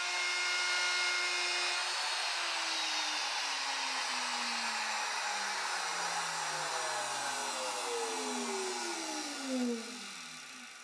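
Router with a chamfer bit running at full speed with a steady high whine, then switched off about two seconds in and winding down, its pitch falling over several seconds until it stops.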